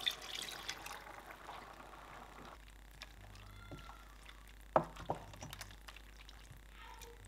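Water poured in a steady stream into a pot of thick egusi soup for about two and a half seconds, then a wooden spoon stirring it, with one sharp knock against the pot, the loudest sound, followed by a few lighter taps.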